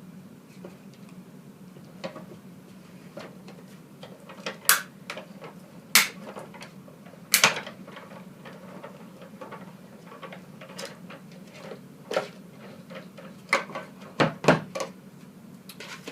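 Cuttlebug die-cut machine in use: cutting plates and die clacking as they are stacked and fed through the hand-cranked rollers, heard as a string of separate knocks and clicks. The loudest come about five, six and seven and a half seconds in, with another cluster near the end.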